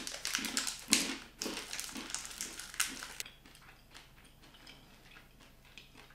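A person chewing a crunchy peanut brittle bar: dense crunching for about three seconds, then fainter chewing.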